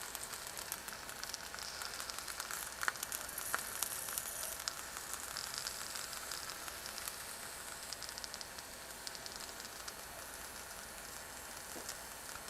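Hot, freshly microwaved plastic and electronics of a Sony headset radio sizzling and crackling: a steady hiss with many scattered small ticks, easing off a little in the second half.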